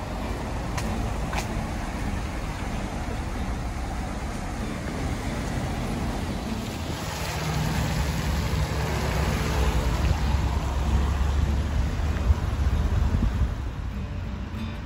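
Road traffic passing on a wet road: a steady hiss of tyres and engine noise. A louder, lower engine rumble swells about halfway through and fades away near the end.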